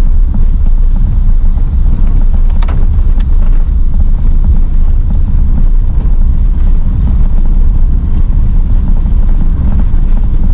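Steady low rumble of a car being driven, engine and road noise heard from inside the cabin.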